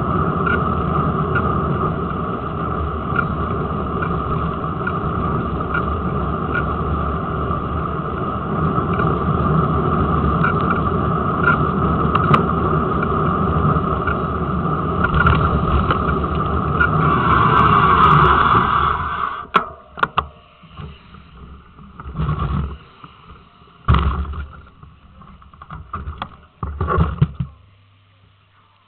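Wind and tyre rumble on a camera mounted on a bicycle's front forks while riding on a road, with a steady whine and light regular ticking. A louder squeal for about two seconds as the bike slows, then the riding noise stops about two-thirds of the way in, followed by several knocks and thumps as the stopped bike is handled and leaned against a wall.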